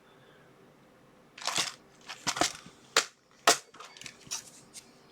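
Handling of a capacitor kit and its plastic packaging: after about a second of quiet, a brief crackle, then a run of sharp plastic clicks and snaps.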